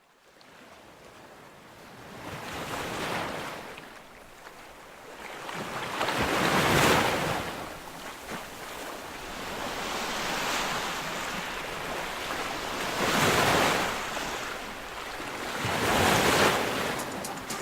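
Sea waves breaking and washing onto the shore in about five swells, a few seconds apart, fading in from silence at the start.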